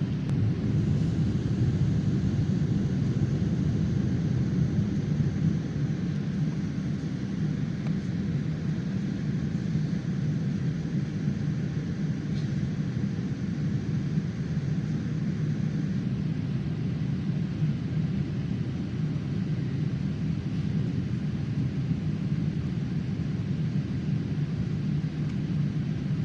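Airliner cabin noise in flight: a steady low drone of engines and airflow heard from inside the cabin, with no change throughout.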